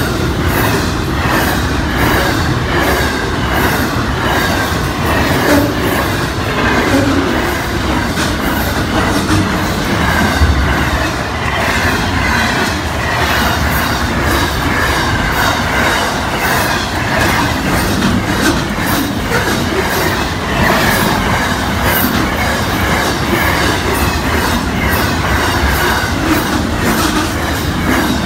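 Double-stacked container freight train's wagons rolling past at close range: a steady loud rumble of steel wheels on rail, with rapid fine clicking and a faint wavering high squeal over it.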